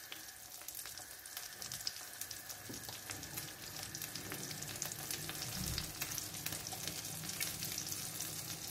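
Cherry tomato halves frying cut side down in olive oil and butter with chopped garlic on low heat: a steady crackling sizzle, growing a little louder.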